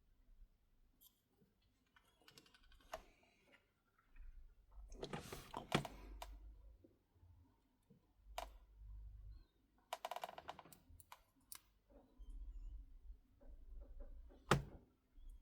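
Small phone parts and hand tools clicking and tapping on a work surface during phone repair: scattered sharp clicks, with denser clicking and rustling handling about five and ten seconds in.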